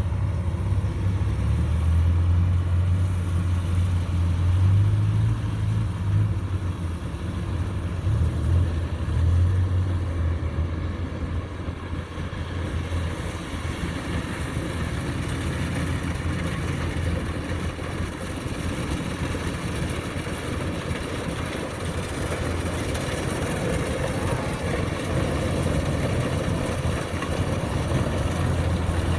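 Kubota DC-105X combine harvester running steadily as it cuts standing rice, a continuous engine hum under machinery noise; the low hum is heavier for about the first half, then eases.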